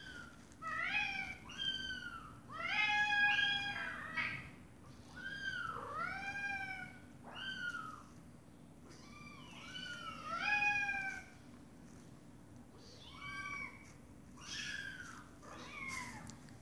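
Kittens meowing over and over: a string of high-pitched, rising-and-falling meows, loudest in the first half and fainter after a short pause.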